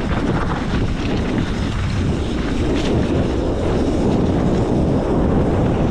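Wind buffeting the microphone: a loud, uneven rumble.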